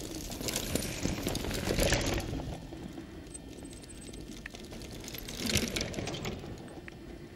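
Mountain bikes rolling past over a grassy dirt track, with tyre noise and the rattle of chains and freewheels; the sound swells as riders pass about a second or two in and again at about five and a half seconds.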